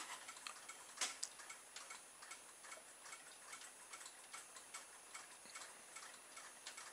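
Solar-powered motion toys (solar movers) ticking away: many faint, irregular ticks several times a second, with one louder click about a second in.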